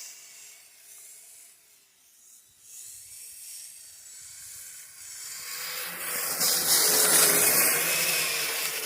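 A tracked RC snow vehicle's electric motor and gearing whine faintly at first. About five seconds in, the sound swells into a loud whine with a rushing hiss as the vehicle powers through the snow.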